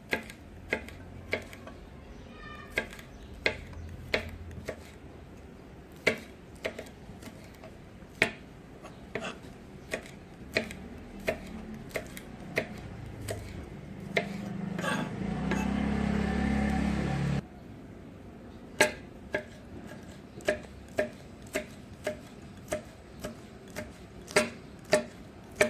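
Knife chopping green beans on a cutting board: sharp, irregular chops, about one or two a second. About two-thirds of the way through, a louder steady rumbling noise runs for about three seconds and cuts off suddenly.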